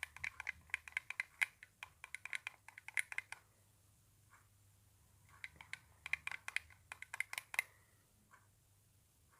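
A spoon stirring a drink in a glass, clinking quickly and repeatedly against the sides in two bouts of a few seconds each, with a short pause between.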